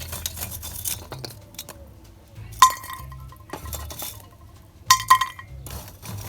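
Metal cooking pot clinking with a short metallic ring as it is handled: rustling and scraping at first, one sharp clink about two and a half seconds in, then a quick run of three or four clinks near five seconds.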